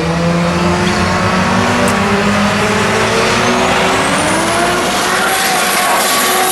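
Drag-racing car's engine running at full throttle down the strip. Its pitch dips and then climbs again partway through, as between gears.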